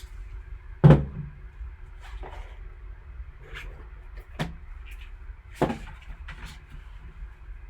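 A trading-card box and its packaging being handled on a table: a sharp knock about a second in, then a few lighter taps and clicks, over a steady low hum.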